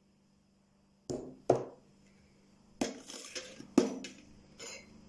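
Glass jars clinking and knocking as they are set down and picked up: a handful of sharp knocks starting about a second in.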